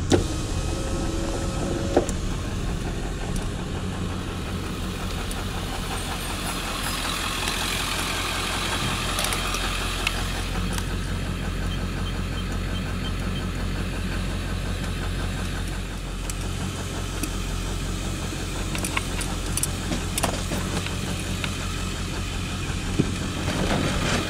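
A 1997 Ford F-250's 7.3-litre diesel engine running at low speed, heard from inside the cab as a steady low drone, with a few light clicks over it.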